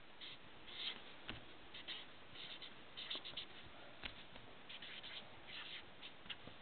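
Felt-tip marker scratching across paper in short, irregular strokes as letters are written, with a couple of faint knocks.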